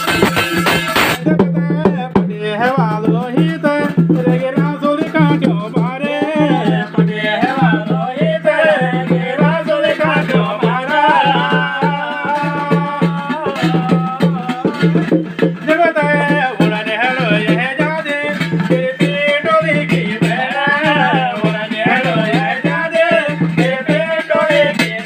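Garhwali jagar folk music: drumming under a steady low drone, with a melody that keeps bending up and down in pitch.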